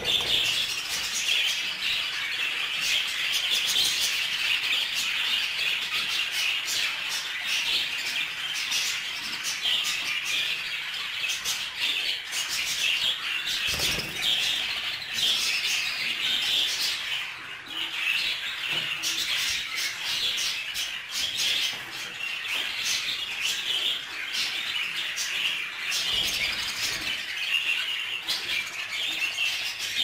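A flock of budgerigars chattering together: a dense, unbroken warbling with many short, sharp chirps and squawks mixed in.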